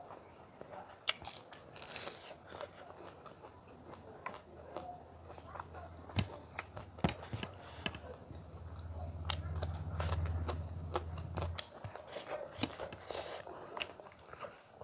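Close-miked eating by hand: chewing and crunching of rice, curry and fried small fish, with many sharp wet mouth clicks and smacks. A low steady hum comes in about four seconds in, swells, and stops abruptly near twelve seconds.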